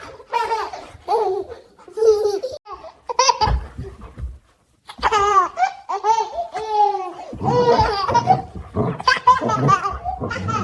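A baby laughing in repeated bursts of high-pitched giggles, with a brief pause about four seconds in.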